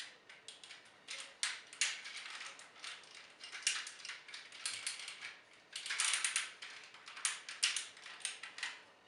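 Plastic toy parts being handled and clicked into place while a Transformers Energon Tidal Wave figure is transformed by hand: irregular clicks, snaps and scraping rustles, loudest about six seconds in.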